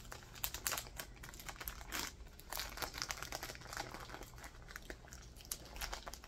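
Packaging crinkling and rustling as it is pulled open and unwrapped by hand, with irregular crackles and a few brief tearing sounds.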